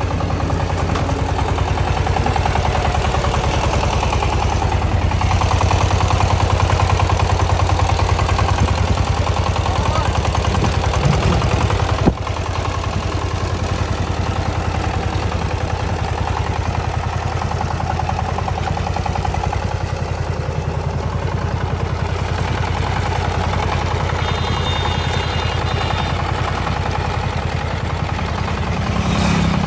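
Power tiller's single-cylinder diesel engine running with a fast, even chugging. There is one sharp click about twelve seconds in.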